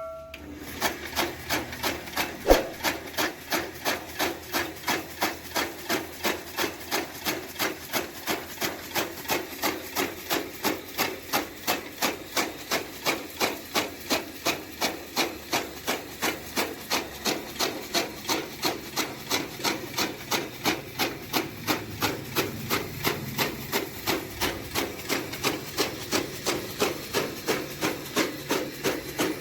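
Electric chaff cutter driven by a 1 hp motor, running steadily: a regular beat of about two to three sharp blade strokes a second over a continuous machine drone.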